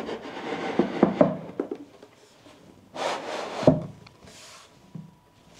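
Wood scraping and rubbing against wood with a few knocks, as a wooden platform panel is pushed into a snug fit in a cabinet frame. A second scrape a few seconds in ends with a thump as the panel seats.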